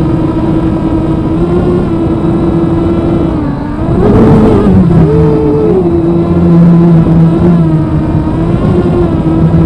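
250-size FPV quadcopter's motors and propellers buzzing steadily, heard from the camera on board. The pitch dips about three and a half seconds in, then swells up twice in quick throttle bursts, with a rush of air noise around the first one.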